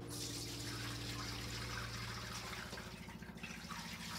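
Chicken broth poured from a metal pot through a fine mesh strainer into a stainless steel bowl, splashing and trickling steadily. It eases briefly about three seconds in.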